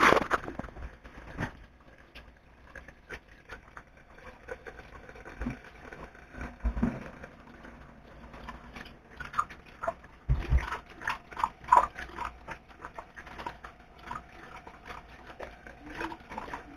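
Tap water running onto a stack of ink-soaked printer waste ink pads while hands squeeze them, with irregular wet squelches and splashes as the overflowed waste ink is washed out.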